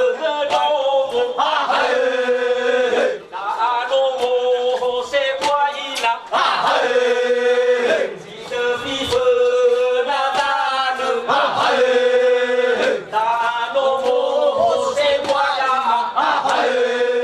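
Group of men singing a traditional Nias chant together in phrases a few seconds long. Each phrase settles on a long held note, with brief pauses between.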